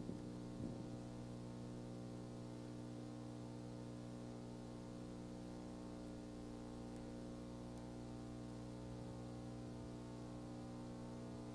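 Faint, steady electrical hum with a stack of overtones, unchanging throughout, carried on the old video's soundtrack.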